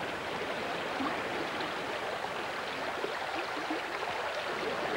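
River water rushing steadily over rocks in the white-water run below a weir.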